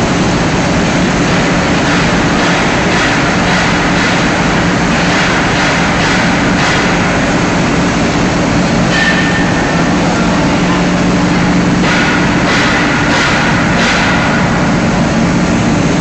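Crusher on a PE film washing line running while fed waste plastic film: a loud, steady mechanical din with a constant low hum and intermittent clattering.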